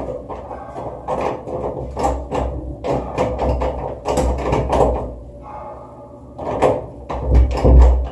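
Knocking and rattling at a closed wooden door: irregular clusters of sharp knocks with a few heavier thumps, the loudest near the end.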